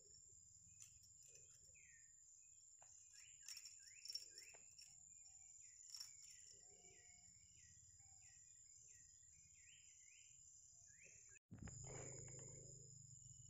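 Faint outdoor ambience: a steady high-pitched insect drone, with a bird calling in a quick series of short chirps from about three to ten seconds in. Near the end the sound cuts out for a moment, then a low rumble comes in.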